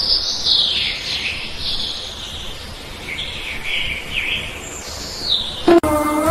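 Birds chirping and singing, in a series of high, quick calls that sweep up and down in pitch. Music cuts in near the end.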